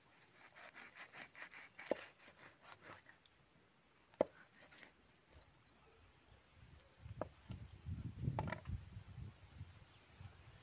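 A broad-bladed knife cutting a fish into pieces on a wooden chopping block. There is a run of quick scraping strokes, two sharp knocks of the blade into the wood about two and four seconds in, then a cluster of duller thuds near the end.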